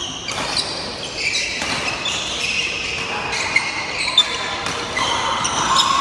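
A fast badminton doubles rally: rackets hitting the shuttlecock, with two sharp hits about half a second apart in the middle, while players' court shoes squeak on the floor.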